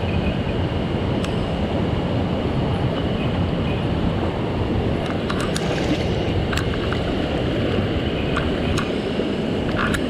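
Mountain stream rushing steadily over rocks, with a scattering of small sharp clicks, mostly in the second half.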